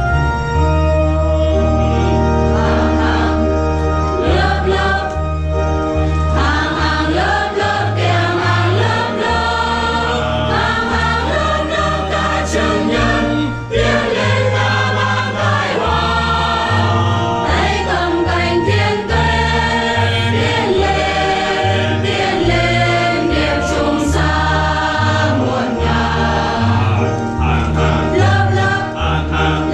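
Mixed church choir singing a hymn in parts, over a keyboard organ accompaniment that holds sustained bass notes and changes them every second or so.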